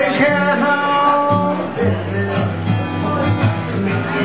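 Acoustic guitar strummed live, with a man singing over it.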